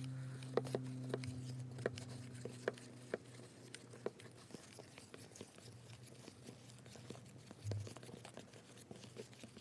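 A spoon stirring glue slime in a bowl as the borax activator is worked in: scattered small clicks and taps, over a faint steady low hum.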